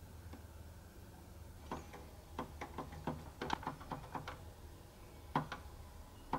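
Plastic push button on a Linky electricity meter being pressed to scroll its display: a quick run of about ten sharp clicks, then two single clicks about a second apart near the end.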